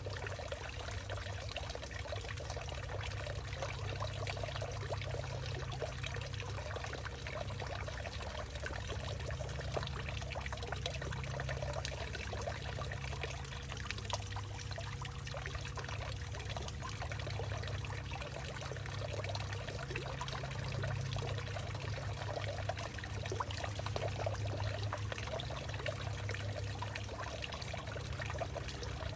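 Water trickling and pouring steadily through a hollowed-out tree, a continuous splashing flow with many small drips.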